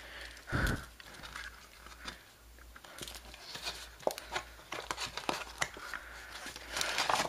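Paperboard cube box being opened by hand: the card flaps and inner sleeve rustle and scrape, with scattered small clicks. A soft thump about half a second in is the loudest moment.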